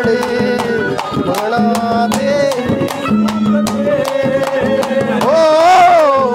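Haryanvi ragni folk music playing without singing: sustained melodic notes over quick, steady drum strokes, with a louder wavering note near the end.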